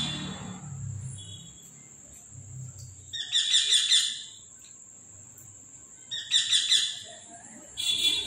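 A bird chirping in three short bursts of rapid repeated notes, each about a second long, over a steady high-pitched whine.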